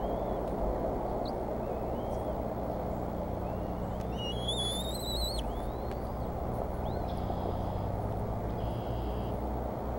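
Steady low background rumble at a bald eagle nest, with faint short rising bird chirps every second or two. About four seconds in comes one louder, high, wavering call that rises over about a second.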